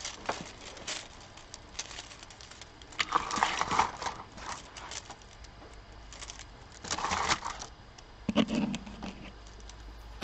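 Handling noise close to the microphone: scattered clicks and taps with two brief rustling bursts, about three and seven seconds in, and a low knock near the end.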